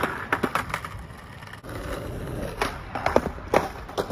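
Skateboard hitting the pavement in a bailed heelflip: a run of sharp wooden clacks as the deck and wheels slap down in the first second, a rougher stretch as it rolls and scrapes, then another cluster of clacks near the end.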